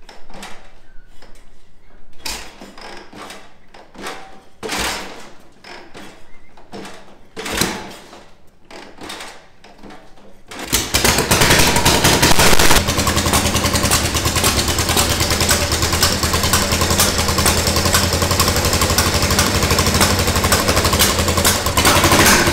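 1965 Harley-Davidson pan/shovel V-twin chopper being kick-started for its first run in about twenty years. A few separate kicks and clanks come first, then about ten seconds in the engine suddenly catches and keeps running loudly with a fast, steady pulse.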